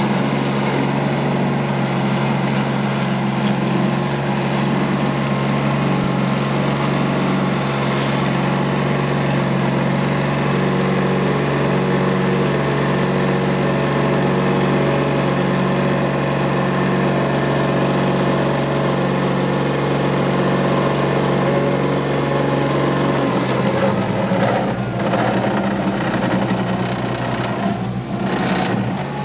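Small ride-on tandem asphalt roller with its engine running steadily as the steel drum rolls over fresh asphalt. The sound's low tones change about 24 seconds in.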